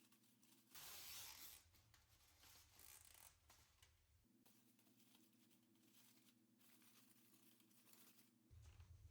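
Near silence: faint room tone, with a brief soft rustle about a second in.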